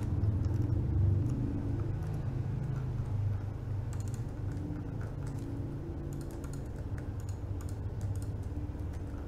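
Scattered clicks of a computer keyboard and mouse, thickest in the second half, over a steady low hum.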